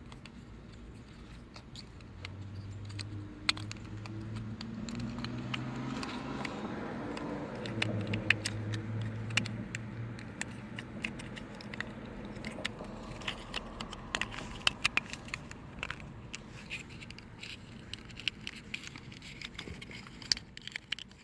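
Small clicks, taps and scrapes of a plastic auxiliary input port housing and its parts being handled and fitted back together. A low hum rises in the background over the first few seconds and fades away after about ten seconds.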